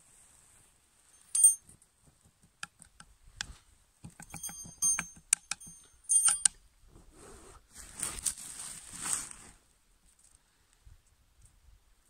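Ferrocerium rod scraped with a steel striker: a run of sharp, bright metallic scrapes and clicks, throwing sparks onto witch's beard lichen tinder. These are followed by a couple of seconds of hissing noise as the tinder catches.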